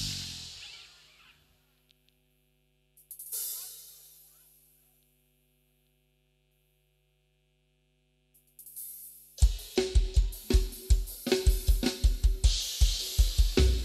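Multitrack band recording played back through a Behringer X32 mixer: a song ends on a drum hit whose cymbal rings and fades, a lone cymbal stroke fades out about three seconds in, then a few seconds of silence. About nine and a half seconds in, the next song starts with drum kit, a steady kick beat and the band.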